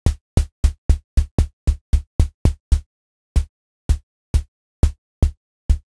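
Synthesized kick drum from the Retrologue 2 synth: a short sine-wave thud with sub-oscillator weight and a brief white-noise click on the attack. It is played in a quick run of about four hits a second, then after a short pause about two a second, while the noise level in the mix is backed off.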